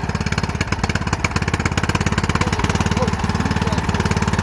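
Riding mower engine running steadily just after being started, with an even, rapid firing beat.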